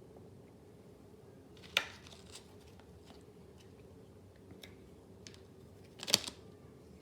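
Two 8 GB Corsair RAM sticks snapping into the DIMM slots of an MSI B550-A Pro motherboard: two sharp clicks about four seconds apart as each module seats and its slot latch locks, with light handling ticks between them.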